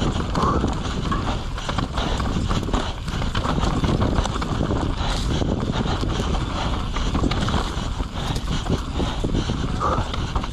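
Wind buffeting the microphone, with a dense run of rhythmic knocks and rattles throughout.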